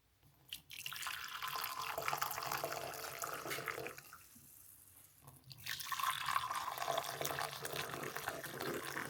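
Water running, as from a tap into a sink, in two runs of about three seconds each with a short pause between.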